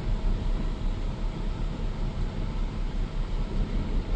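2006 Nissan Sentra's 1.8-litre four-cylinder engine idling, heard from inside the cabin as a steady low rumble under the even hiss of the air conditioning blowing. The car is running well with no warning lights.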